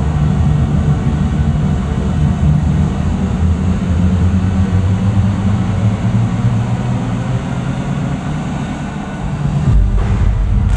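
Low, rumbling electronic drone on the soundtrack, with a deep bass hit coming in just before the end and a bright whoosh right at the close.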